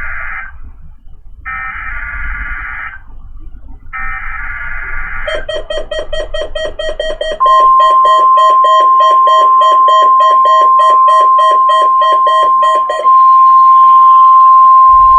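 NOAA Weather Radio Emergency Alert System test: three shrill, warbling bursts of the SAME digital header, then a rapid beeping at about four beeps a second. Partway through the beeping, the steady 1050 Hz weather radio warning alarm tone starts, and it carries on alone after the beeping stops.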